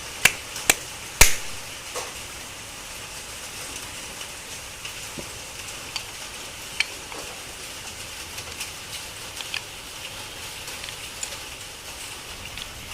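Sharp metal clicks and knocks of e-rickshaw gearbox parts being handled and fitted back together, three near the start with the loudest about a second in, then a faint steady hiss with scattered light ticks.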